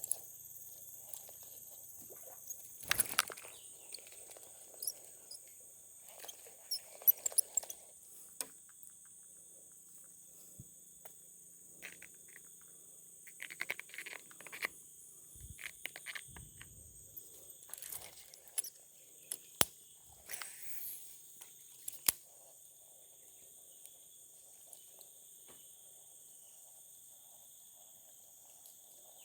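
Steady high-pitched insect chorus, with scattered sharp clicks and short bursts of rustling from handling nearby.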